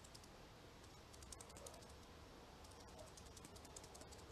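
Near silence: room tone with faint, light clicking in two short scattered runs.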